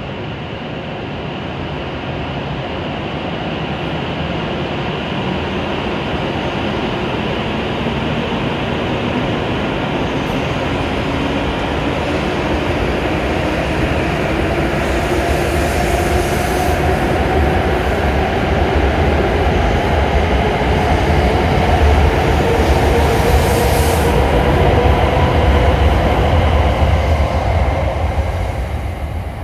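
W7 series Shinkansen trainset pulling out of the station and accelerating: its traction motors whine, rising steadily in pitch, over running and wheel noise that grows louder. The sound drops off near the end as the train clears the platform.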